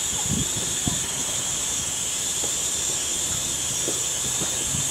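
Steady hiss of steam escaping from beneath the coaches of a steam-hauled train, over the low, uneven rumble of a diesel-electric multiple unit running slowly into the platform.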